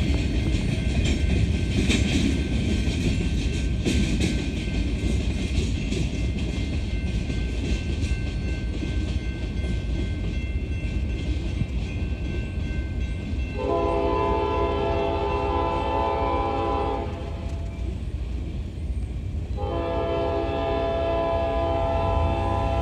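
Last cars of a freight train rolling past, wheels clicking over the rail joints, until the noise fades about thirteen seconds in. Then the locomotive's multi-note air horn sounds two long blasts, each about three seconds.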